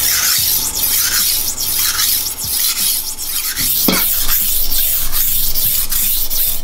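Chef's knife blade being stroked back and forth along a wet 400/1000-grit combination whetstone under firm hand pressure: a repeated rasping scrape, about one to two strokes a second, with a brief squeak near the middle.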